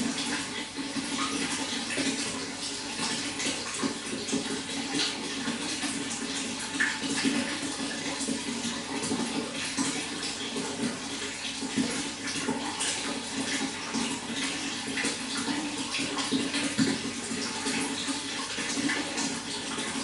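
Running water flowing steadily, a continuous rush with many small splashes and trickles through it.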